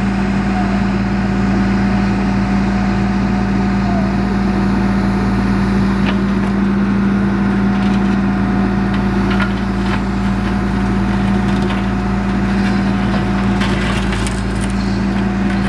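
Backhoe's diesel engine running steadily with a constant hum, while the bucket digs, giving scattered cracks and knocks from about six seconds in.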